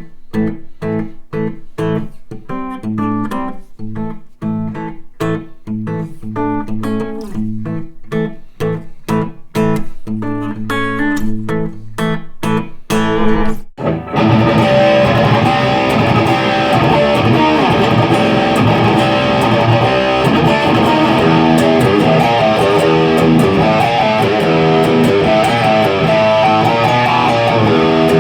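Electric guitar playing picked notes and chords with short gaps between them. About halfway through it changes abruptly to a louder, dense, sustained rock passage.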